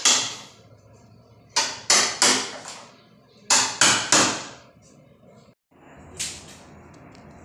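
Hammer blows in quick sets of three, each strike ringing briefly, about a third of a second apart, with a single blow near the end.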